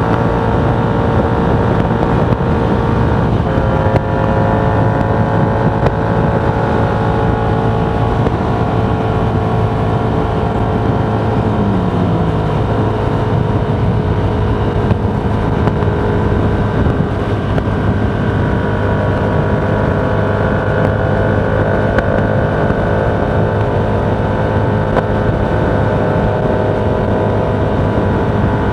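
Vehicle on the move at a steady pace: constant road and wind noise with a low hum and several steady tones that drift slowly in pitch.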